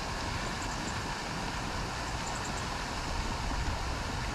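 Steady rushing and splashing of a lake aerator churning the water, an even, unbroken noise.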